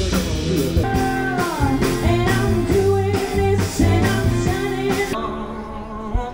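Live rock band playing, a singer's melody over a drum kit and band; about five seconds in the drums stop and quieter music carries on.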